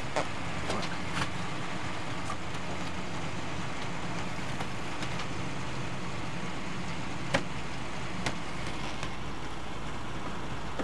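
A pickup truck's engine idling with a steady low hum, with a few sharp clicks.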